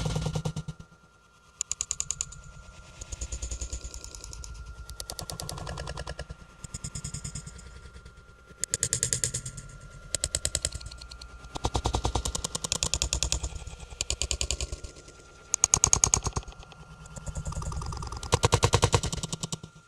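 Rapid rattling clatter in repeated bursts of about a second each, some loud and some faint, over a thin steady high tone.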